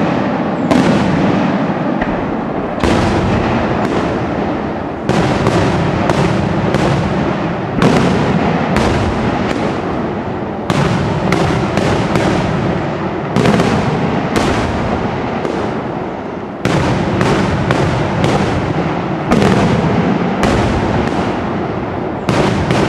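Daytime aerial firework salutes bursting overhead in an unbroken barrage: sharp bangs, several a second at times, overlapping in a continuous rumble.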